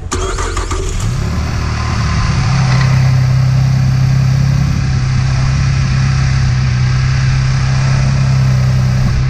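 2014 Chevrolet Camaro's 3.6-litre LFX V6 starting up: the engine catches, its speed rises over the first couple of seconds, then it settles into a steady idle. This is the first run after a fresh oil change, to check for leaks.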